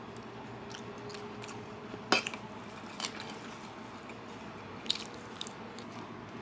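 Eating noises: a metal fork clicking against a plastic tray of salad three times, the loudest about two seconds in, with a few fainter ticks over a low steady room background.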